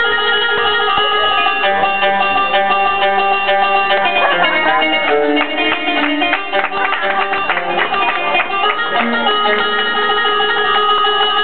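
Live Egyptian dance music led by a plucked string instrument playing held, ringing notes, with sharp drum strokes between about four and eight seconds in.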